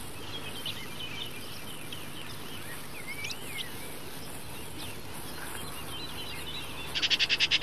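Birds chirping and warbling in a busy chorus, with a quick run of about eight loud, rapid notes near the end, over a steady low hum.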